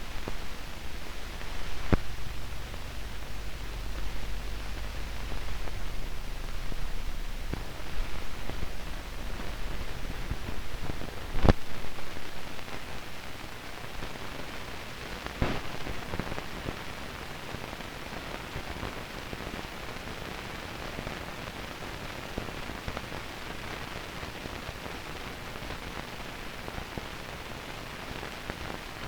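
Steady hiss and crackle of an old film soundtrack with no program sound, broken by a few sharp pops, the loudest about eleven seconds in. A low hum runs under the first half and then fades.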